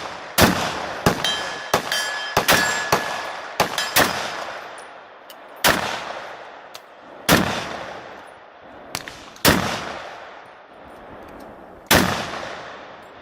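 Rifle shots from a 7.62x63 (.30-06) rifle: seven loud single shots at irregular gaps of about one and a half to two and a half seconds, each followed by a rolling echo, with fainter reports between them.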